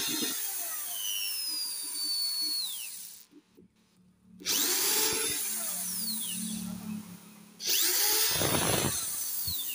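Cordless drill-driver backing screws out of a sheet-metal casing, in three runs. The first run stops about three seconds in, the next starts a second or so later, and a third follows near the end.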